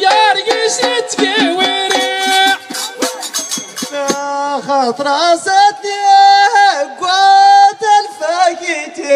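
Men's chorus singing Amazigh Ahwach song in long, wavering held notes. Sharp percussive beats sound in the first three seconds.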